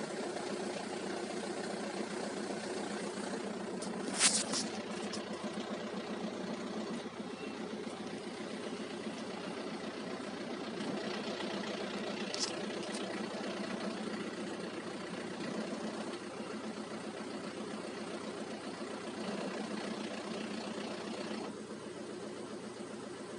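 Car engine idling with its manual gearbox in neutral making a rattling, grinding noise after a clutch change, which the owner suspects comes from a loose slave cylinder or worn gearbox bearings. A brief sharp high-pitched sound stands out about four seconds in, and a fainter one about twelve seconds in.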